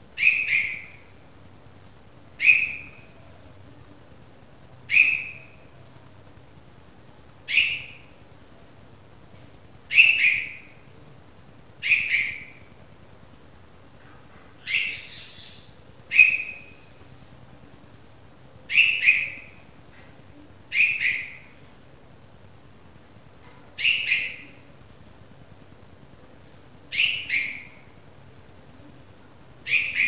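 Newly fledged red-vented bulbul chick calling: short, sharp single or doubled calls repeated about every two to three seconds.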